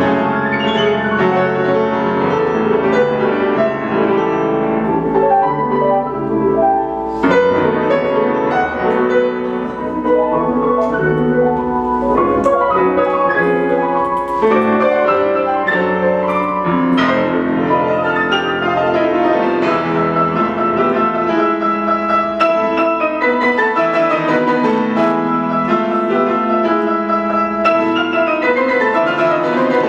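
Steinway grand piano played four hands by two pianists, a continuous flow of dense chords and running notes, with several loud, sharply struck chords along the way.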